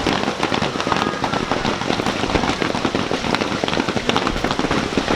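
Fireworks display: a dense, continuous crackle of many small pops and bangs, with faint whistles from rising shells.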